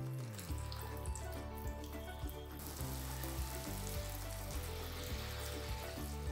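Tomato and spice masala sizzling in a frying pan over background music with a steady bass line. The sizzle turns into a louder hiss about two and a half seconds in.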